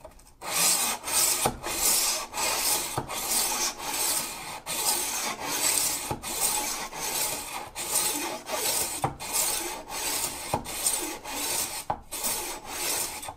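A steel kitchen knife blade scraped back and forth through the manual honing slot (stage three) of a Chef's Choice 250 Diamond Hone Hybrid sharpener with the motor off. It makes a rasping stroke about twice a second, with a brief pause at each change of direction. This is the final honing and polishing stage of sharpening.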